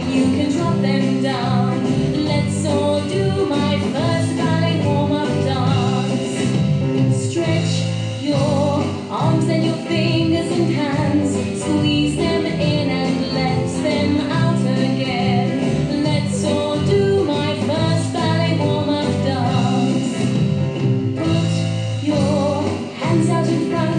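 Recorded song with a singer over a steady beat.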